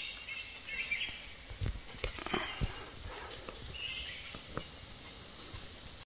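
Forest ambience with a few short bird chirps and scattered soft knocks and rustles.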